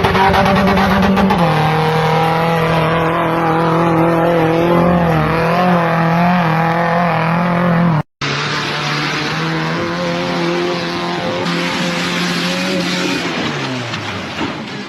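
Off-road 4x4 engine running at high revs under load, holding a steady pitch. A second engine picks up after a sudden cut about eight seconds in, and its revs fall away near the end.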